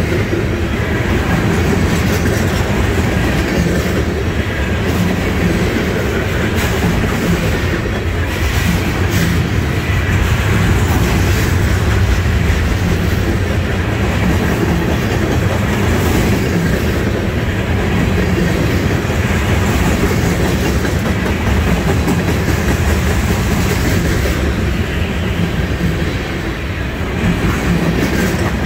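Freight cars loaded with trash containers rolling past at close range: a steady, loud rumble with the clatter of steel wheels on the rails.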